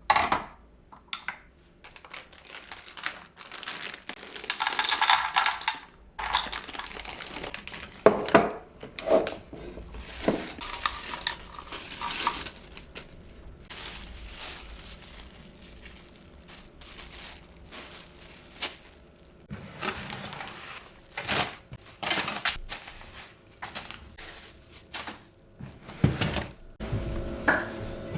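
Groceries and containers being handled and put away: a steady run of knocks and clatters of packages and containers set down and moved, with plastic packaging rustling and crinkling in between.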